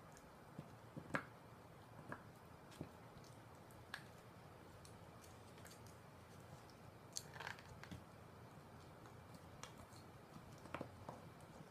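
A poodle gnawing a hanwoo beef bone: irregular sharp cracks and crunches of teeth on bone, the loudest about a second in, with quiet between them.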